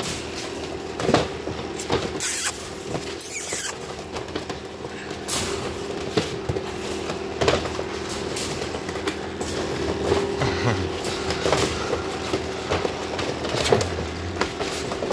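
Scuffling, clicks and knocks of husky puppies moving about in a wire crate, with a faint steady hum behind.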